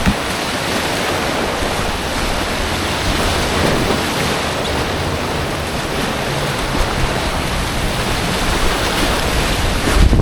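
Steady loud rush of whitewater on Clear Creek around an inflatable kayak running a rapid, with a low rumble that strengthens near the end.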